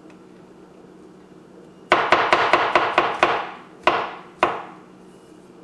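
Chef's knife chopping sliced mushrooms on a cutting board. About two seconds in comes a fast run of about nine chops, then two more single chops a little later.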